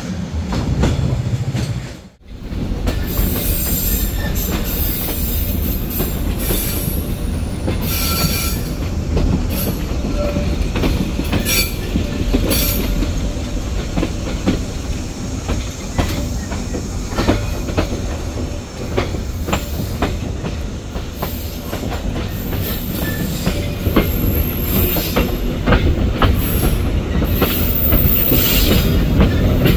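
A passenger train's steel wheels running on the rails, heard from on board. There is a steady rumble with clicks and knocks from the track and brief high wheel squeals, and it grows a little louder near the end. The sound cuts out for a moment about two seconds in.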